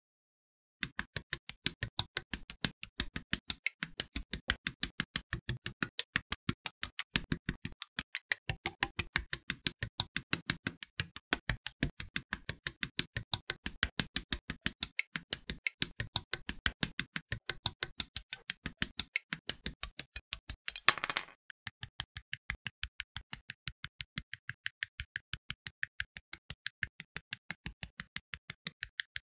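Quick, even run of sharp plastic clicks, about five or six a second: side cutters snipping parts of a plastic model kit off their runners, and parts being handled and snapped together. One longer rustling scrape comes about two-thirds of the way through.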